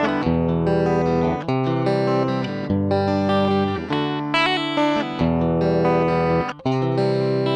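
Electric guitar chords played through a Strymon Deco pedal on its cassette tape-saturation setting. Each chord rings for about a second before the next, with a short break shortly before the end.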